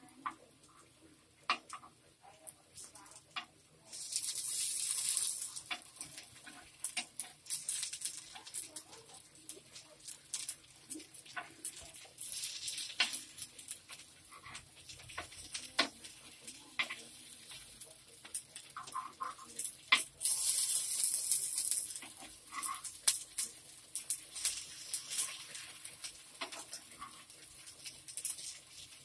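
Steel spoon clicking and scraping against a paniyaram pan as the paniyarams are turned over one by one, with oil sizzling. The hiss swells twice for a couple of seconds.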